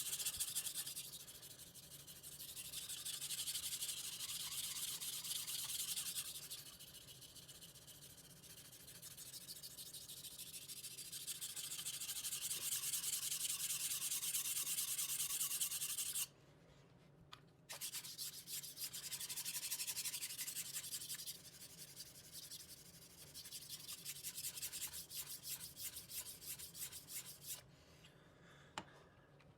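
Kitchen knife blade stroked rapidly back and forth on a wet 400-grit whetstone with a layer of slurry, a rhythmic gritty scraping that raises a burr along the edge. The strokes stop for about a second just past halfway, then resume.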